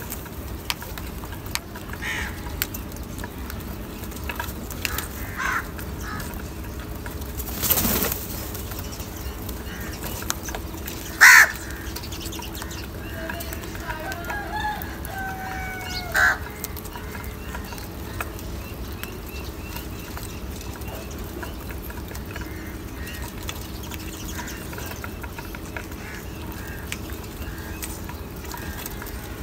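House crows feeding and calling now and then, with short single caws, the loudest about eleven seconds in and another near sixteen seconds, and fainter calls between. Over a steady background hiss, with one brief rush of noise about eight seconds in.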